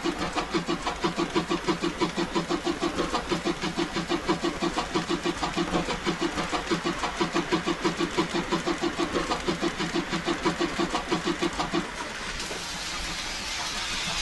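Steam locomotive exhaust chuffing at a steady pace of about four beats a second, the draft sound of a locomotive working. About twelve seconds in the beats stop, leaving a steady hiss.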